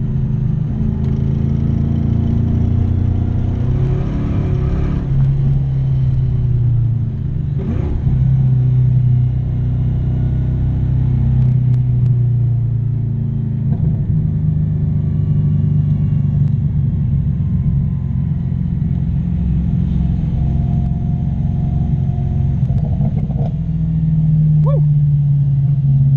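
LS1 5.7-litre V8 in a BMW 318ti running hard under load, its engine note rising and dropping several times as the car accelerates and lifts.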